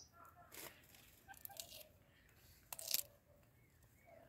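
Blue-and-gold macaw biting and crunching into a green mango held in its foot: a few short crunches, the loudest about three seconds in.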